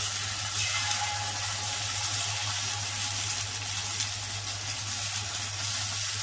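Steady hissing sizzle as rice-flour batter is ladled into a hot cast-iron chitoi pitha mould over a high gas flame.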